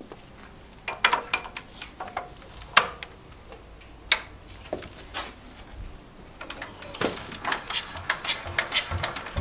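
Petter PAZ1 single-cylinder diesel engine being hand-cranked for a cold start. Irregular metallic clicks and clanks of the crank come first; from about six and a half seconds in, a quickening, regular clatter sets in over dull thumps about two a second.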